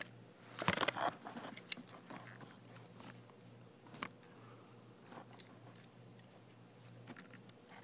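Scattered plastic clicks and handling rattles from a cheap toy RC car being fiddled with, its power switch flicked off and on, the loudest cluster about a second in, over a faint steady hum; the car's motor, which the owner thinks is dead, does not start.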